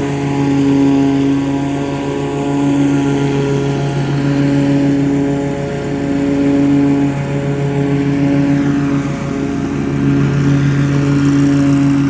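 Riding lawn mower engine running steadily at mowing speed, its loudness swelling and easing gently every few seconds as the mower moves across the grass.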